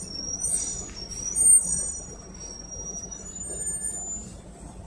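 Inside a PAZ-32054 bus on the move: the low rumble of the running bus under several high-pitched squealing tones that waver and shift in pitch, with a loud knock about one and a half seconds in.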